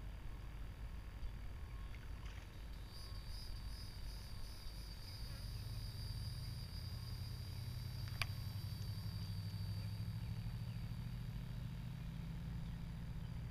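Outdoor lakeside ambience: a steady low rumble that grows a little fuller partway through, a steady high whine from a few seconds in until near the end, and one sharp click about eight seconds in.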